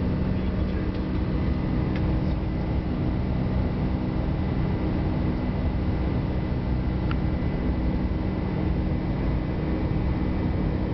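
Steady cabin noise inside a Lockheed L-1011 TriStar airliner shortly after takeoff: the even drone of its three Rolls-Royce RB211 turbofans and rushing air, with a steady low tone and a faint high whine.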